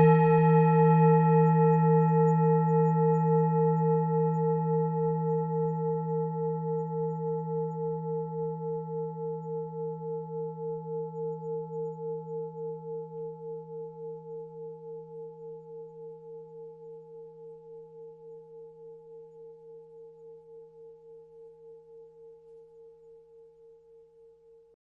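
Tibetan singing bowl ringing out after a strike: a low hum with a few higher overtones, pulsing a few times a second and fading slowly to almost nothing near the end.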